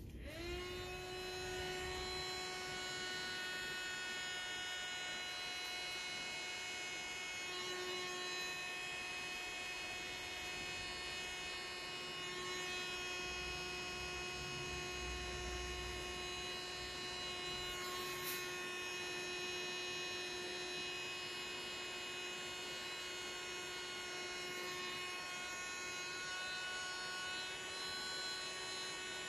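Small handheld electric air blower switching on and spinning up, then running steadily with a motor whine that holds one pitch.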